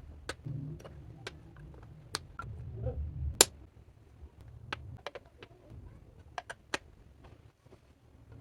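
Clear slime being squished and worked by hand, with irregular sharp clicky pops of trapped air over a soft squelching rumble. The loudest pop comes about three and a half seconds in.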